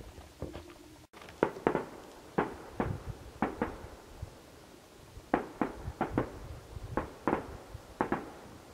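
Distant fireworks display: a string of sharp bangs from shells bursting, about fourteen of them, many coming in quick pairs.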